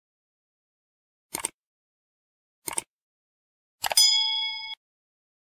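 Subscribe-button animation sound effects: two clicks about a second and a half apart, then a third click followed by a short notification-bell ding that rings for under a second.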